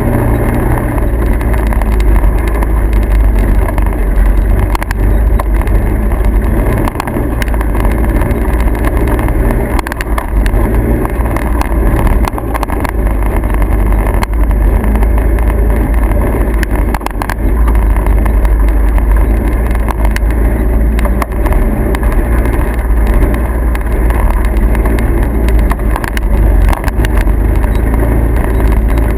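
A vehicle running steadily: a constant loud, deep noise with no clear change in pace.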